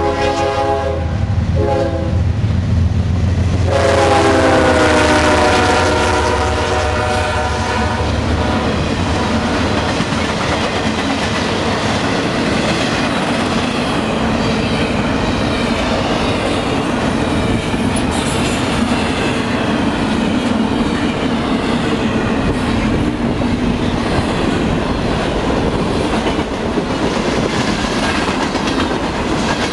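CSX ES44DC diesel locomotive's air horn blowing a chord at a grade crossing: a blast ending about a second and a half in, then a longer blast from about four to eight seconds whose pitch drops as the locomotives go by, over the engines' low rumble. Then the freight cars roll past fast, the wheels clicking over the rail joints.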